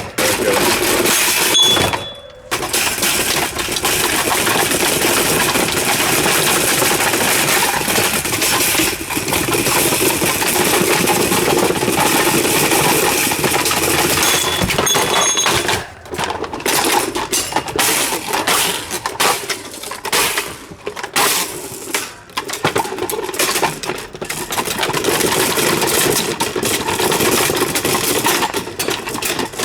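Continuous loud metallic and plastic clattering and rattling from an old Super Deluxe table fan being smashed and broken apart. There are brief breaks, more often in the second half.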